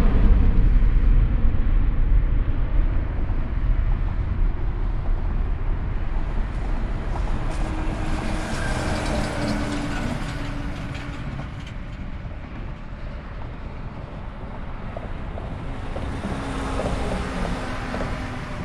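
Departing jet airliner's engine rumble fading steadily as the aircraft climbs away, with some crackle in the middle.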